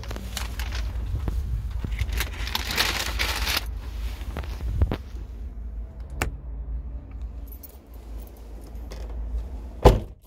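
Car keys jangling on their keyring at the ignition, with small clicks and handling rustle, and one loud thump near the end.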